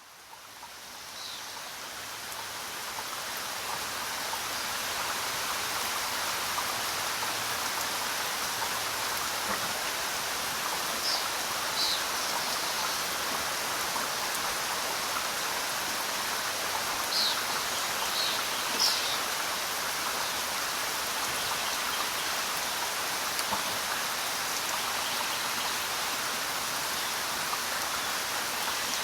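Steady rain falling, fading in over the first few seconds, with a few brief bird chirps scattered through it, mostly in the middle.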